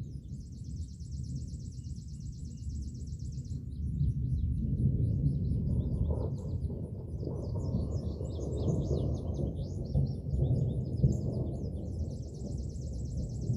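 Distant thunder rolling: a long low rumble that swells about four seconds in, holds through the middle and eases off near the end. Birds chirp over it, and a high pulsing trill is heard at the start and again near the end.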